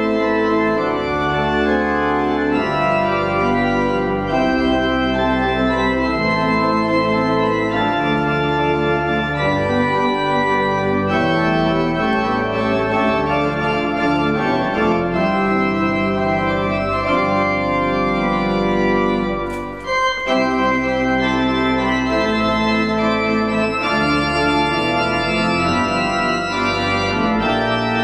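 Organ music playing slow, held chords that change every second or so, with a brief dip and a click about twenty seconds in.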